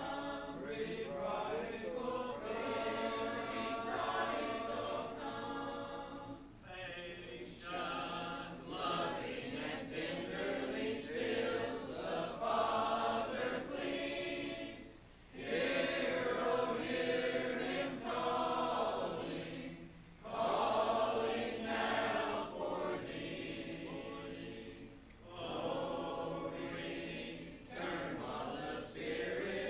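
Congregation singing a hymn a cappella, many voices in unaccompanied harmony, with short breaks between the sung lines.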